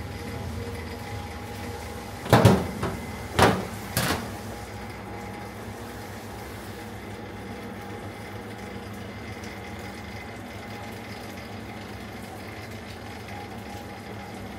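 Three sharp knocks about two to four seconds in, the first the loudest, over a steady background hum with a few faint steady tones.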